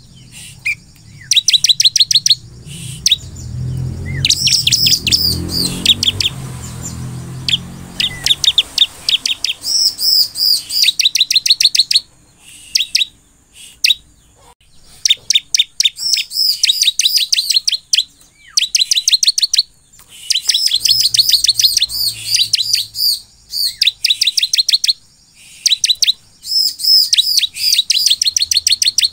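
Bar-winged prinia (ciblek) singing: fast runs of rapid, high-pitched chirping notes, each run lasting a second to several seconds, broken by short pauses.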